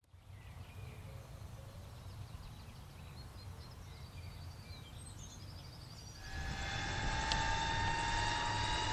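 Radio-controlled scale Bell 222 model helicopter spinning up, slowed to half speed: a low rumble with faint high chirps, then about six seconds in the model's engine and rotor come in as a louder steady whine that rises slightly in pitch.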